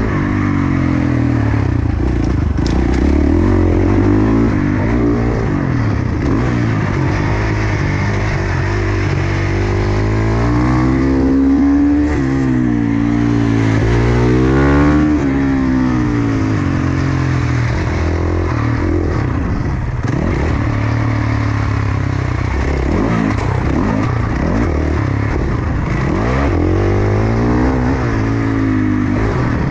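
Onboard sound of a single-cylinder four-stroke supermoto motorcycle being ridden hard. The engine revs up and drops again over and over as the rider accelerates, shifts and brakes through off-road and asphalt sections.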